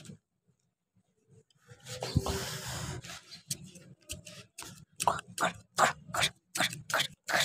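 Small hand trowel scraping and digging into dry, sandy garden soil, loosening the bed's compacted earth. A rough scrape about two seconds in is followed by a run of short scrapes, about three a second.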